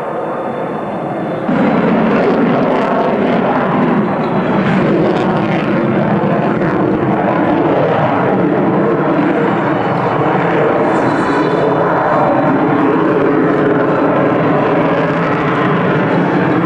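Sukhoi Su-30MKK fighter's twin turbofan jet engines running loud, a steady rushing noise with a layer of humming tones in it; the sound steps up sharply about a second and a half in.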